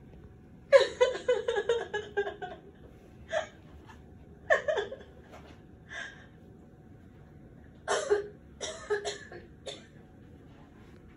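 Talking patient-simulator mannequin giving out recorded non-word vocal sounds through its speaker: breathy voice sounds in several short bursts with pauses between, the longest about a second in.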